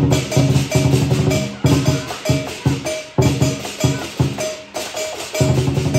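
Lion dance percussion: a large drum beaten in fast rolls of strokes with clashing cymbals, in phrases, the drum dropping out briefly a few times.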